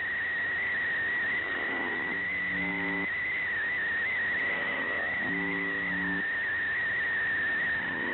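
Shortwave radio reception of the UVB-76 'Buzzer' station: a short low buzz repeats about every two and a half seconds over static hiss. A steady high whistle, an interfering tone, sits over it throughout.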